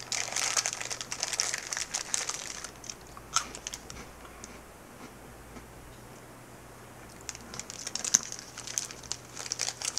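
Maltesers candy wrapper crinkling as it is handled. The crinkling comes in two bouts: one for the first three seconds or so, and another starting about seven seconds in, with a quieter pause between them.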